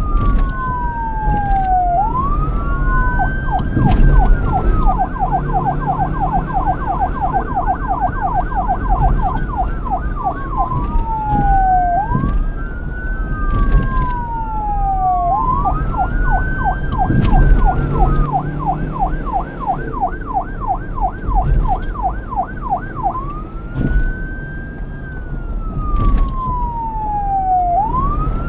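Electronic police siren alternating between a slow wail and a fast yelp. It gives long rising and falling pitch sweeps, then runs of rapid up-and-down sweeps about six a second, twice over, with a low rumble underneath.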